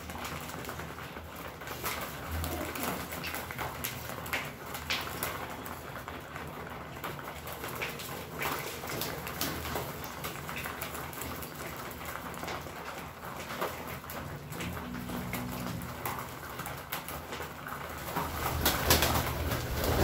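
Domestic pigeons cooing, with many short clicks and taps of beaks pecking seed from a feed tray. A louder rustling stretch comes near the end.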